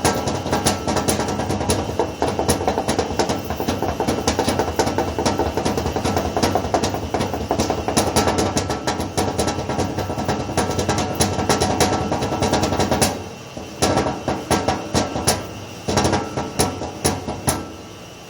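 Fingers drumming a fast solo on a washing machine's casing: a dense run of rapid taps over a steady background sound. About two-thirds through the background drops away and the taps turn sparser, in short flurries, before stopping near the end.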